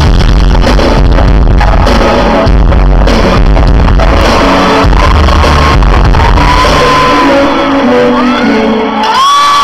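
Live pop concert music played loud through the arena sound system, recorded heavily distorted by a broken camera microphone, with the crowd screaming over it. Near the end the music breaks off and high-pitched screams from fans rise.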